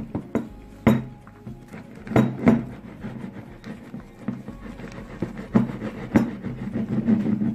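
Hands kneading and squishing fluffy shaving-gel slime in a glass bowl, with soft squelching and several sharp knocks and clinks against the glass.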